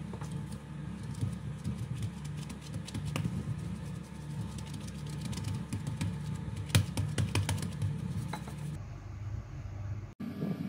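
Light tapping and clicking of gloved hands working rolled biscuit dough on a worktop, with a cluster of sharp clicks about six to seven and a half seconds in, over a steady low hum.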